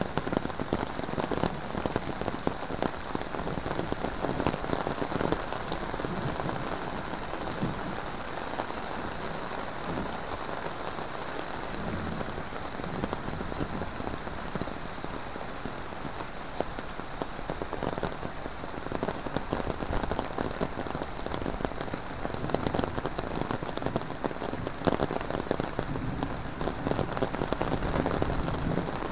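Heavy rain falling steadily, with close drops pattering on an umbrella overhead and on wet ground and puddles.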